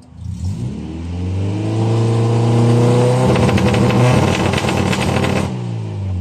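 Honda Civic EK9's four-cylinder VTEC engine revved in place: the pitch climbs over the first three seconds, holds high and turns rough and choppy for about two seconds, then falls back toward idle near the end.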